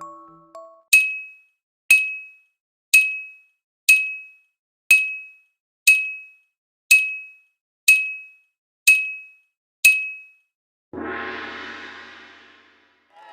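A ding sound effect: ten short, identical high dings, evenly one a second, like a countdown. It is followed by a longer, fuller ringing hit, like a gong, that fades away over about two seconds.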